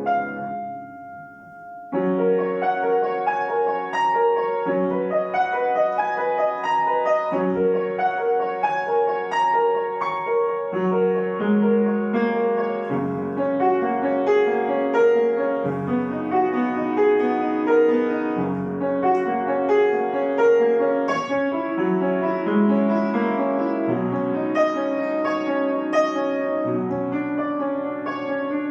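Solo piano. A single note rings and dies away for about two seconds, then quick, evenly repeated figures in the middle register resume over shifting bass notes.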